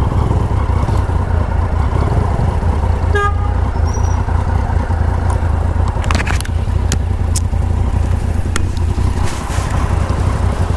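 Motorcycle engine idling steadily, with a short car-horn toot about three seconds in and a few sharp clicks a little past the middle.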